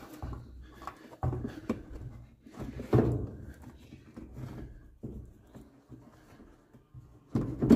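Plastic heater box being worked into place against a car's firewall: irregular scraping and knocking of plastic, with a louder knock near the end.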